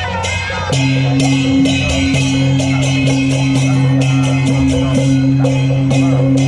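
Procession percussion: hand cymbals clashed in a steady beat of about three strikes a second, with a drum. About a second in, a loud, low, steady droning tone joins and holds.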